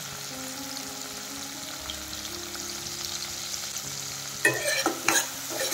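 Sliced onions and tomatoes sizzling steadily in hot oil in a wok, with a quick cluster of sharp clatters of a utensil against the pan about four and a half seconds in.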